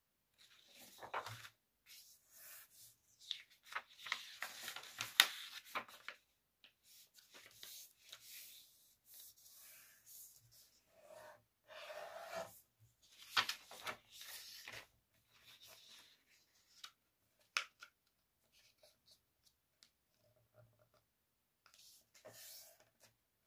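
A sheet of A4 paper being folded by hand on a wooden table: faint rustling, sliding and creasing in irregular bursts, with a few short, sharp clicks.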